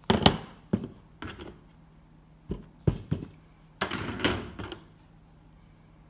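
Plastic ink pad cases knocking on a craft table and against a rubber stamp as they are set down, picked up and pressed onto the stamp: a loud knock at the start, several lighter knocks, and a brief scraping rustle about four seconds in.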